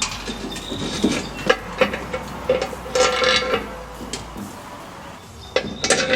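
Metal parts knocking and clinking together as they are handled, an irregular series of sharp clanks, some leaving a brief ringing tone.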